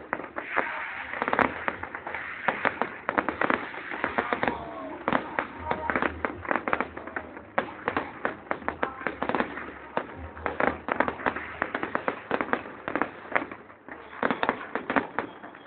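Fireworks display: a dense barrage of sharp bangs and crackles, many a second, going on without a break and thinning out near the end.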